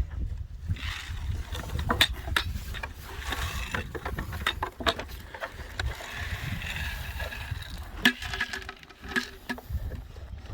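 Dry pig feed being scooped and poured, with many knocks and rattles from handling the feed container, over a steady low rumble.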